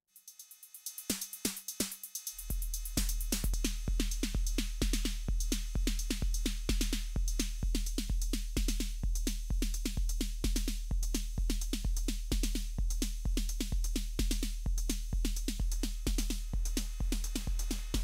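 Roland TR-8 drum machine beat played through a Mooer Hustle Drive overdrive pedal under test. It starts with hi-hat ticks alone, then the kick comes in about two seconds in and settles into a steady four-on-the-floor pattern of about two kicks a second under busy hi-hats.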